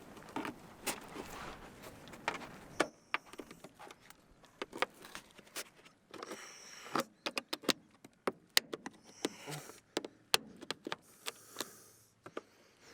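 Irregular sharp clicks and light knocks, a few to several a second, with short pauses between them.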